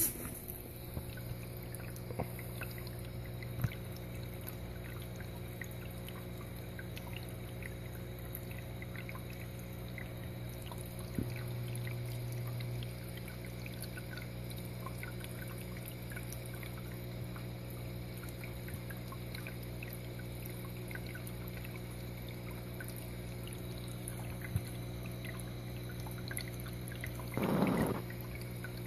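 Aquarium pump and filter running: a steady low hum with water trickling and splashing at the surface. A brief rustling noise comes near the end.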